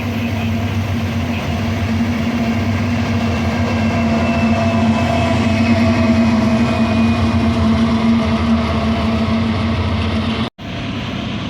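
Diesel train passing, its engine running with a steady low drone that grows a little louder toward the middle. The sound cuts out for an instant near the end.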